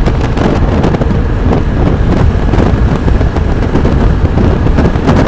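Wind buffeting the microphone of a rider on a moving Aprilia SXR160 scooter: a loud, steady rush, heaviest in the low range, over the scooter's running and road noise.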